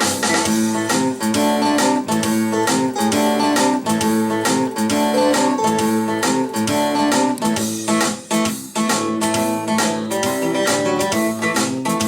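Blues guitar music with a steady strummed rhythm, played back through KEF Q Concerto Meta three-way stand-mount speakers driven by a Cyrus One Cast amplifier. The music dips briefly about eight seconds in.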